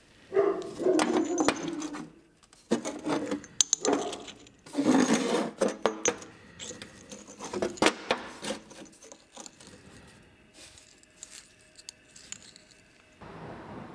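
Scraping and rubbing in irregular bursts with sharp clinks, as of hard workpieces or tools being handled, busiest in the first six seconds and then sparser clicks.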